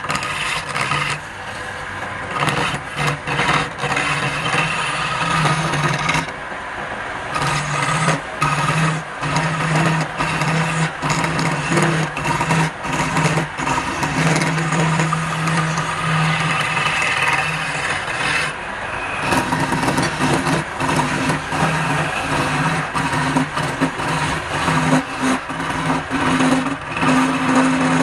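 Wood lathe running while a hand-held turning tool cuts a spinning wooden cylinder: a steady motor hum under a continuous, irregular scraping of the tool shaving the wood.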